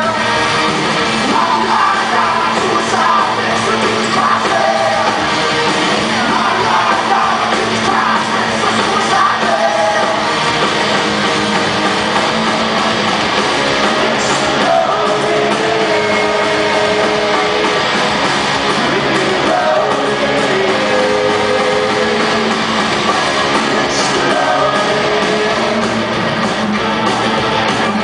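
Rock band playing live through a PA, heard from the audience in a large hall: distorted electric guitars, bass and drums under a sung lead vocal.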